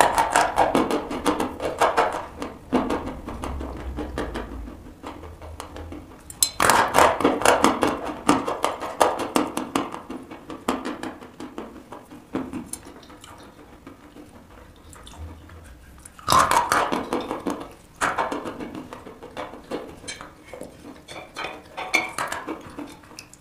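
Dry white chalk crunching as it is bitten and chewed. Loud fresh bites come about a quarter and two-thirds of the way through, each followed by a run of crisp, gritty chewing crunches that die away.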